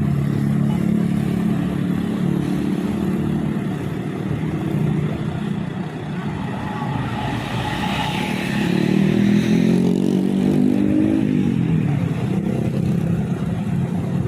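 Road traffic: a vehicle engine running, then revving up with rising pitch about nine seconds in before dropping back.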